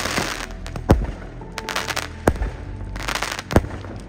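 Fireworks going off: three sharp bangs about a second and a half apart, with stretches of crackling between them.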